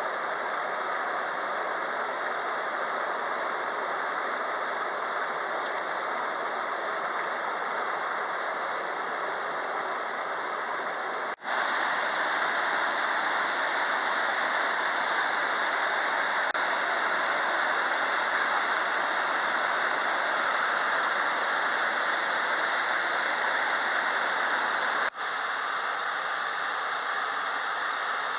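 Queguay River waterfall: the steady rush of falling water. It breaks off for an instant twice, about eleven seconds in and near the end, and is louder between the two breaks.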